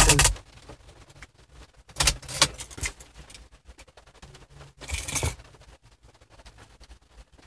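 Podcast audio through the car stereo cuts off just after the start. Faint scattered clicks and pops follow, with a cluster of crackles about two seconds in and a short burst of static around five seconds in. This is noise from the Nexus 7's USB DAC, the fault that builds up after it has run for a while.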